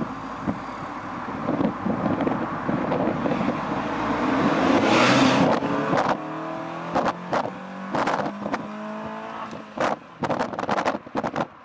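Fiat 500 with an aftermarket open intake and Magnaflow exhaust, heard from inside the cabin as it accelerates. Intake and engine noise swell to their loudest about five seconds in, then the engine note climbs steadily in pitch. A run of sharp clicks and knocks comes near the end.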